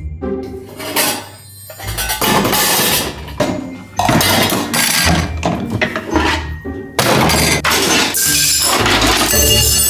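Background music, with plastic toy dishes, cups and pots clattering and clinking as they are handled and tipped out of a toy kitchen onto a hard floor.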